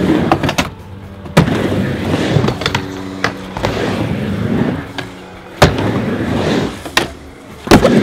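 Skateboard wheels rolling on a miniramp, a rumble that rises and falls as the rider carves, broken by sharp clacks of the board and trucks striking the ramp and its metal coping: once about a second and a half in, again near six seconds, and twice close together near the end.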